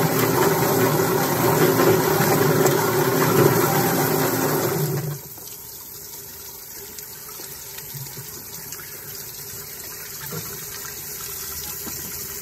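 Yardbird drum chicken plucker running, its spinning plate tumbling a scalded chicken against the rubber fingers in a wash of water. The motor is switched off about five seconds in, and a much quieter steady sound remains.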